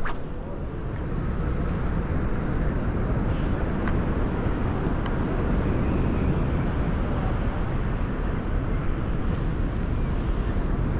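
Steady wind rumble on the microphone, with a few faint clicks.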